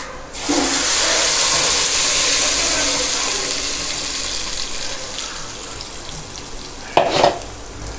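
Ground mint and coriander chutney hitting hot tempering oil with mustard seeds, a dried red chilli and curry leaves in a steel kadai: a loud sizzle that starts about half a second in and slowly dies down as the cooler paste settles.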